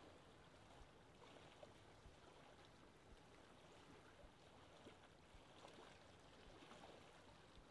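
Near silence: a faint steady hiss with a few tiny ticks.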